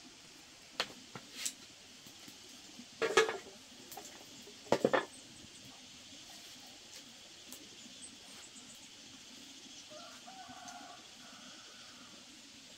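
A few sharp knocks and clatters, the two loudest about three and five seconds in, over a faint steady background, then a brief pitched call about ten seconds in.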